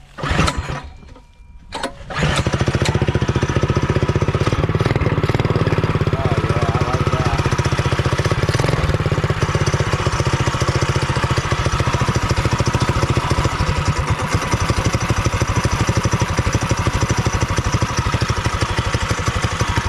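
Engine with a newly fitted header and stainless steel muffler, started cold on choke: a couple of brief cranking attempts, then it catches about two seconds in and runs steadily through the new exhaust.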